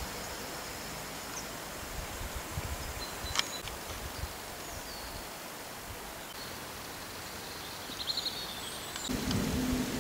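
Outdoor ambience: an even hiss with scattered low thumps of wind or handling on the microphone, and a few short high chirps. A steady low hum comes in suddenly near the end.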